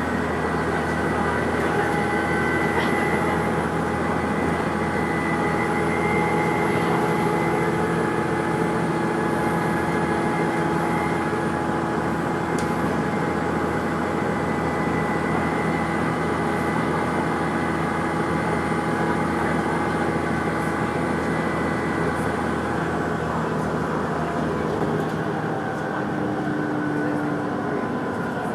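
A vehicle running, heard from on board: a steady rumble with several steady whining tones layered over it and a faint, wavering high-pitched whistle above, plus a few brief clicks.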